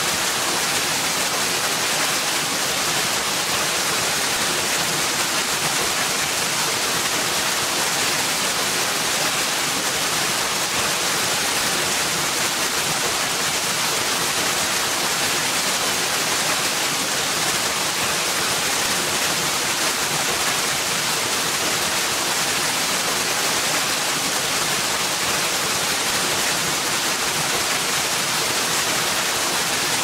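A small, gentle waterfall: water falling and splashing in a steady, unchanging rush with an even hiss.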